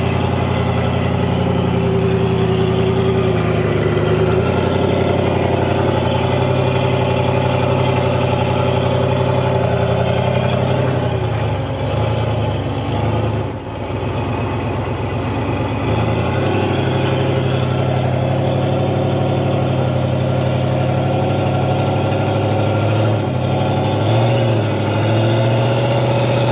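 Rock crawler's engine running under load at a steady, held rev as the buggy crawls up a steep rock ledge; the engine note shifts a little a few times and falls away for a few seconds near the middle before picking up again.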